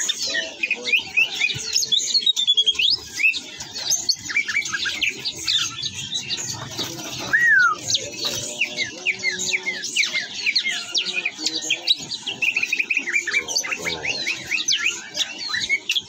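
Caged green leafbirds (cucak hijau) singing in full voice, a fast stream of varied chirps and short whistled glides, among other caged songbirds chirping.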